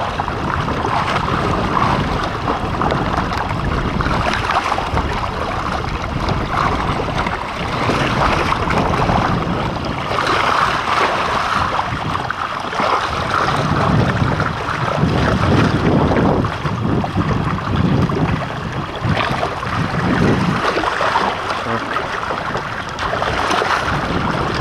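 Water rushing and splashing along the hull of a Hobie Adventure Island sailing kayak under sail, with wind buffeting the microphone. The noise swells and eases over the stretch without stopping.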